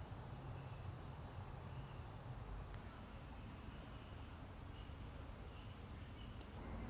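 Outdoor ambience with a steady low rumble; from about three seconds in, a short, high chirp from a small animal repeats roughly every 0.8 seconds.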